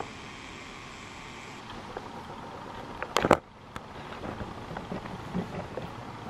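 Walking footsteps and camera-handling noise in a hard-walled marble hall, with small scattered knocks over a faint hum that fades out after about a second and a half. A brief loud clatter sounds a little after three seconds.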